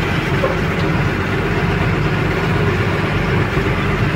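Heavy truck's diesel engine running steadily, heard from the cab while the loaded truck is driven.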